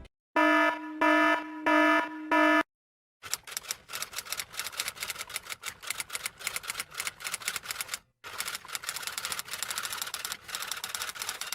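Four short electronic beeps, then typewriter keys clacking in a rapid, irregular run, with a short break about eight seconds in.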